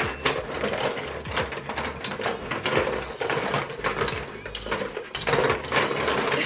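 Chopsticks and balls clattering and rattling inside plastic buckets as two people rummage blindly for balls, a busy run of irregular clicks and knocks.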